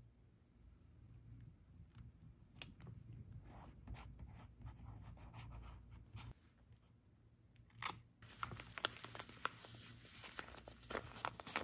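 Paper-craft handling at a desk: scattered light taps and rustles over a low hum, then from about eight seconds in a continuous scratchy tearing of paper with small crackles.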